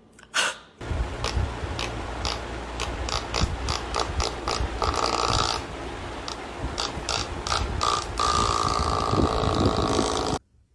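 Loud mechanical clattering with many rapid clicks, starting about a second in and cutting off abruptly near the end.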